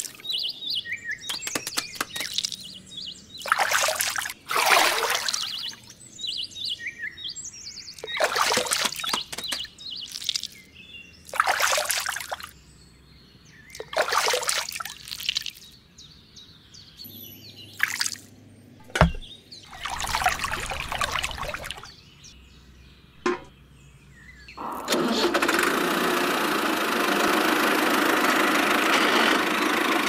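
Muddy water splashing and sloshing in short bursts a second or two apart as a hand grabs fish in a small pond. About 25 seconds in, a steady rushing noise starts and runs on.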